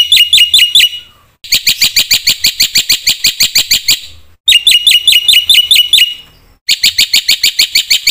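Black-winged myna (jalak putih) calling in loud bouts of rapid, evenly repeated sharp chirps, about nine a second, each bout lasting two to three seconds with short pauses between them.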